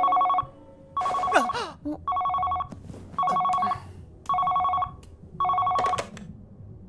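Wall-mounted phone ringing with an electronic two-tone ring: six short rings about a second apart, stopping as the receiver is lifted.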